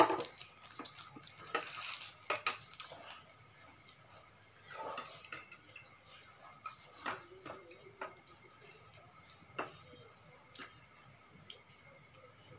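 Forks clicking, tapping and scraping against plates while noodles are eaten, a scattering of sharp clicks with a louder knock right at the start.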